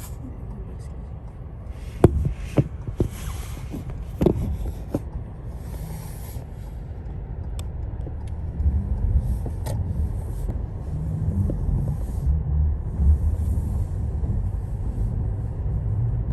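Car driving on a snowy road: steady low tyre and road rumble, with a few sharp knocks about two to five seconds in, and the rumble growing louder in the second half.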